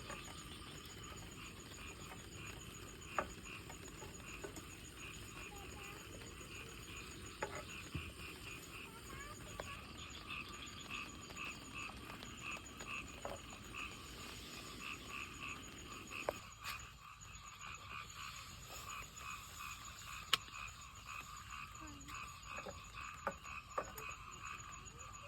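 A chorus of frogs croaking, many rapid calls repeating without a break. A steady high trill runs under it, and a few sharp clicks stand out.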